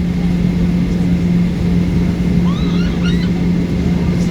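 Steady drone of a Boeing 737-800's CFM56 jet engines heard inside the passenger cabin, an even rumble with a constant low hum.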